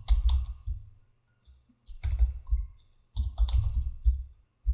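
Computer keyboard being typed on in three short runs of keystrokes, spelling out a folder name, with quiet gaps between the runs.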